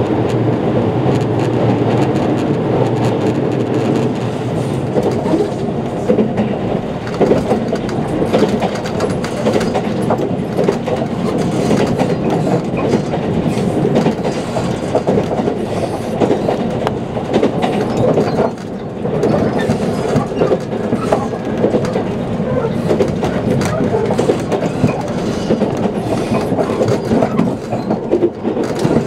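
JR Kyushu 787 series electric limited express train running at speed, heard from inside the passenger car: a steady rumble of wheels on rail with rapid clicks from the track.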